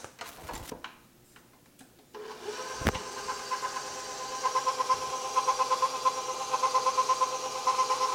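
Electric stand mixer switched on about two seconds in and running at a low speed, mixing flour into creamed butter dough: a steady motor whine with a rhythmic pulse about three times a second as the beater turns. A sharp click comes just after it starts.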